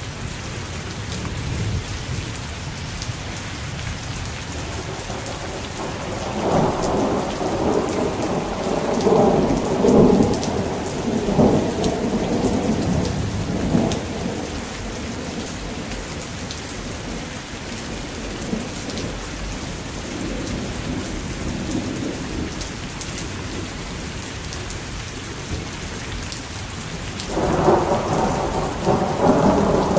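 Steady rain falling, with a long rumble of thunder rolling through from about six to fourteen seconds in and another beginning near the end.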